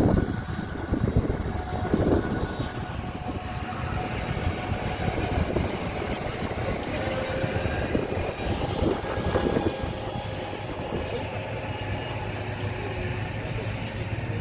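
Heavy diesel harvest machinery running steadily at work in a wheat field.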